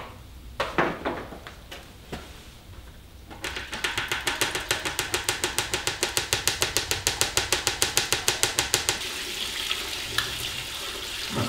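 A few knocks from handling the hose and buckets, then fermented plum wash running from a siphon hose into a bucket: for several seconds it splutters in rapid, even spurts, about eight a second, as air and liquid come through together, then settles into a steady flow near the end.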